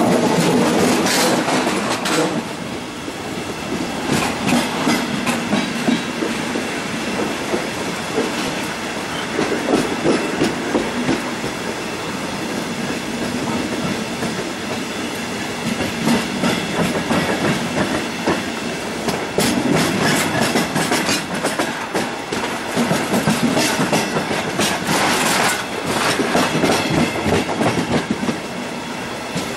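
Passenger train running, heard from on board: steady rolling noise from the wheels, with clattering over rail joints and points that comes in clusters every several seconds.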